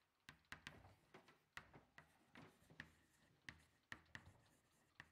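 Chalk writing on a blackboard: faint, irregular taps and short strokes of the chalk against the board, about a dozen in a few seconds.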